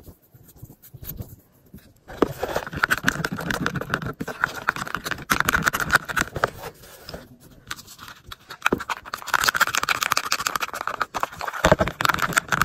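Pink plastic spatula stirring a thickened body-wash and torn-cardboard slime mixture in a plastic deli container: fast wet scraping and clicking against the container. It starts about two seconds in, eases off briefly around the middle, then picks up again.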